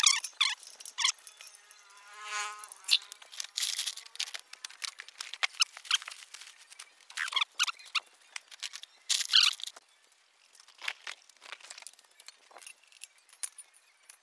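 Scattered sharp metallic clicks and clinks from hand tools working on a motorbike wheel's spokes, with a short squeak about two seconds in.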